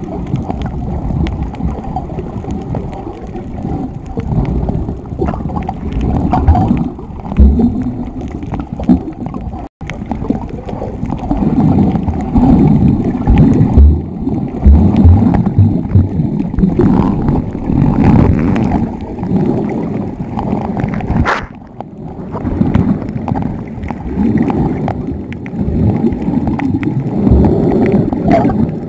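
Muffled underwater water noise picked up by a camera held below the surface: irregular low gurgling and bubbling as the swimmer moves. The sound cuts out for an instant about ten seconds in.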